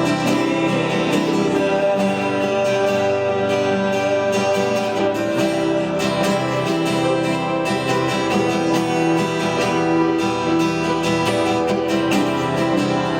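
Worship music with strummed acoustic guitar, playing steadily throughout.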